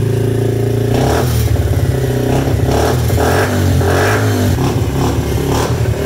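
Yamaha TT-R50 dirt bike's small four-stroke single-cylinder engine, fitted with an FMF PowerCore 4 exhaust, idling steadily, then from about a second in running unevenly with its engine speed rising and falling.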